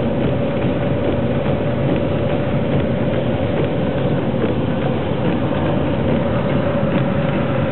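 Steady road and engine noise of a car driving on a snowy highway, heard from inside the cabin: an even rumble with a constant hum running through it.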